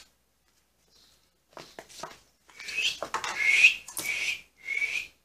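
A metal spoon scraping a puppy's wet kibble mash off a small plate into an aluminium dog bowl, in several loud strokes, after a few light clicks as the bowl is set down on the tile floor.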